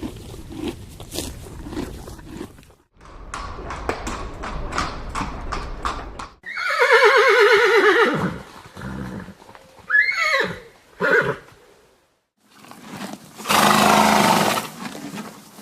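A run of separate horse sounds. Hooves clip-clop at first, then a loud whinny about six and a half seconds in wavers in pitch for about two seconds. A couple of short falling calls come around ten seconds, and a long breathy snort comes near the end.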